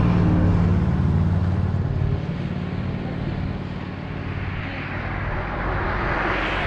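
Car driving along, engine and road noise. The engine tone is strongest for the first two seconds, then eases into steadier road noise.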